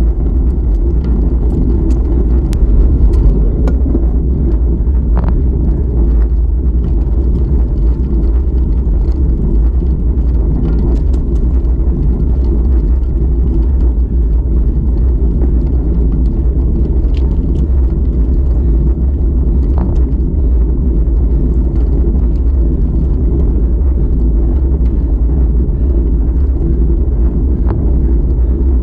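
Steady low wind rumble buffeting the microphone of a camera mounted on a moving bicycle, mixed with the rolling noise of its tyres on asphalt, with a few faint ticks.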